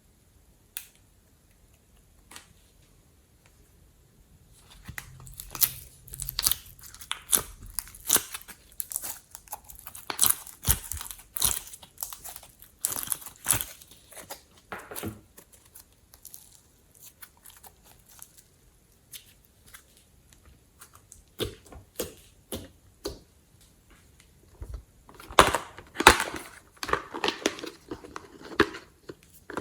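Glossy slime being squished and worked by hand, giving bursts of sticky crackling, popping clicks. Quiet at first with a few single clicks, then dense crackling for about ten seconds, sparser clicks, and a louder flurry near the end.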